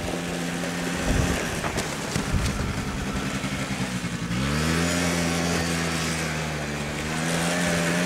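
Small 49cc Aeon quad bike engine running as the ATV is ridden; about four seconds in its pitch rises as it speeds up, then holds steady at the higher note.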